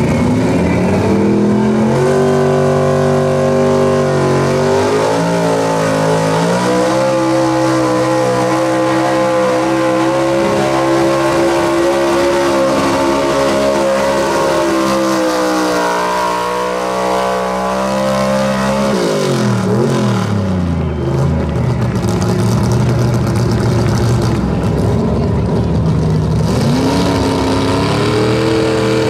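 Old Chevrolet pickup pulling truck's engine held at high revs under full load as it drags a weight-transfer sled, pitch wavering slightly, then falling steeply about two-thirds of the way in as the pull ends. Near the end another pulling truck's engine revs up as it starts its run.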